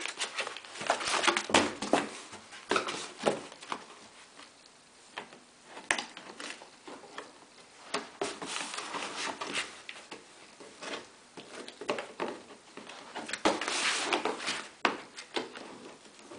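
Cardboard box scraping and crinkling as a border collie puppy noses into it and climbs in and out, in irregular bursts with a longer, louder scrunching spell near the end.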